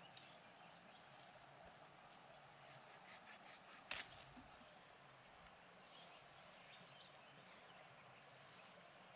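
Faint, high-pitched insect trilling in short pulsed bursts, repeating about once a second. About four seconds in there is a single sharp snap as a machete blade cuts through a leafy stem.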